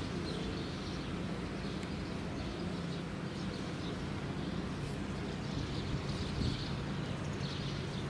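Outdoor ambience: a steady low hum under faint, irregularly repeated high chirps.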